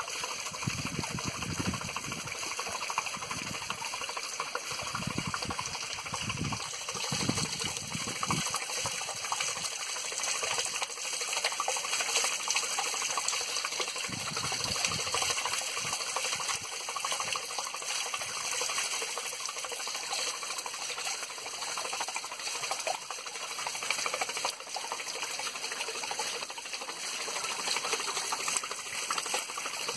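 Water pouring and splashing off a small turning waterwheel, a steady rushing hiss, with a few low rumbles in the first half.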